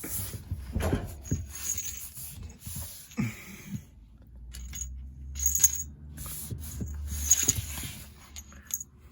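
A cat playing and moving about, making scattered light taps, clicks and rustles over a low handling rumble.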